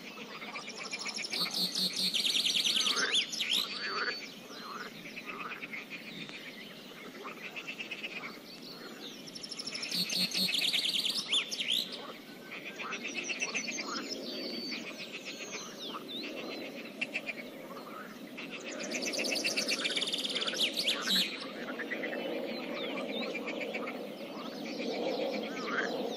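Pond ambience: a songbird sings a fast, trilling song phrase three times, about every eight to nine seconds, over frogs croaking steadily in the background.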